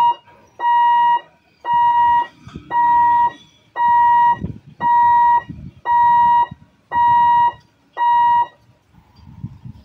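Electric lifting-barrier warning buzzer at a railway level crossing, giving a steady high beep about once a second, nine times, while the booms rise, and stopping once they are up. Faint low rumble of waiting vehicles between the beeps.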